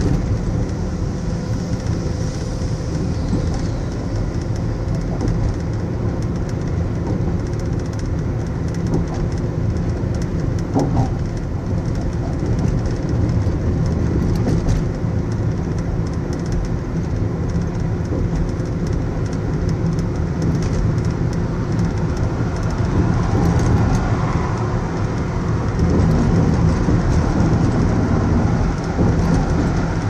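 Car driving across a bridge roadway: a steady low rumble of tyre and road noise, with other traffic alongside, growing a little louder near the end.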